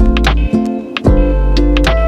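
Background music with a steady beat: sustained notes over deep bass, with sharp percussion hits.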